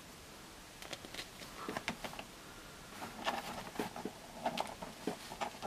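Hands handling a plastic action figure, fitting a cape piece over its shoulders and standing it up: a scatter of faint small clicks, taps and rustles.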